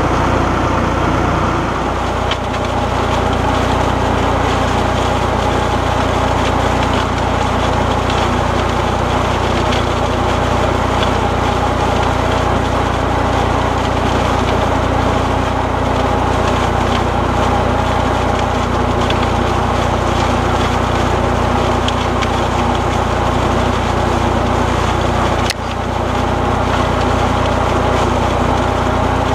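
Fendt 209 F vineyard tractor's engine running steadily, driving a Binger leaf remover as it works through the vine canopy. The sound dips suddenly for a moment near the end, then picks up again.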